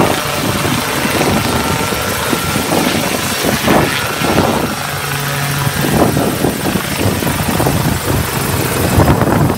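Small light helicopter hovering and flying low, its engine and rotor running loudly and steadily.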